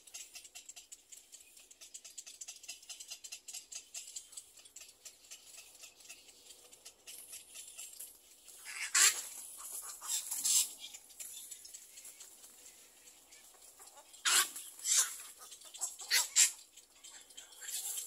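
Little egret chicks giving harsh, raspy squawks: a handful of loud calls from about halfway in. Before the calls there is a faint, fast ticking.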